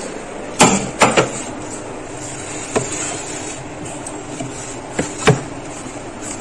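Tray of mangoes being set onto a refrigerator freezer shelf: a few sharp knocks and clunks, the loudest about half a second and a second in and a pair about five seconds in, over a steady rumbling hum.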